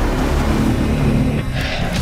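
Loud outro music with a heavy, dense low end and a rushing swell near the end.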